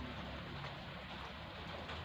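Close-miked chewing of chicken balado: a few faint mouth clicks over a steady hiss.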